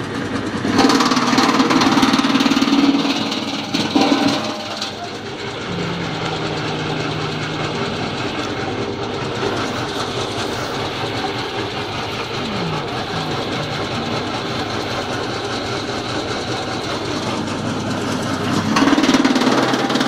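Electric-motor-driven drum wood chipper with two rotating knives, running steadily at speed. It gets louder and harsher for a few seconds about a second in and again near the end, as branches are fed through and chipped.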